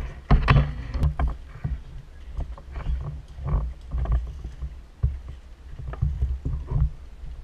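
Handling noise from a rifle-mounted action camera as the player moves: low rumbling with repeated knocks and rustles of gear and clothing.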